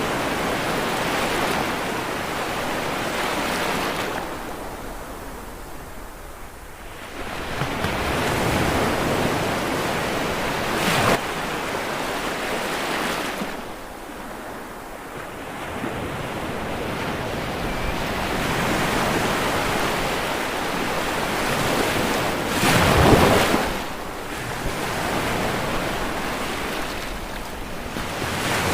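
Ocean waves breaking and washing up the shore, the surf swelling and ebbing in slow surges every several seconds, loudest about 23 seconds in.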